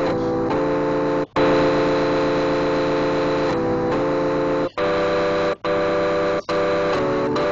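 Sustained keyboard chords, each held for a second or several before changing, broken by several brief silences partway through.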